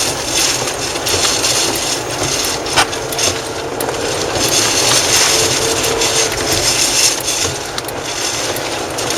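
Vehicle on the move, with a loud steady rush of wind and road noise and scattered sharp knocks and clicks.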